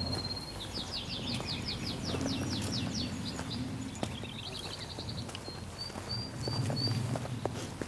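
A songbird singing high and clear: a held whistle, then a fast run of about a dozen sweeping notes, a short trill, and four brief whistles near the end.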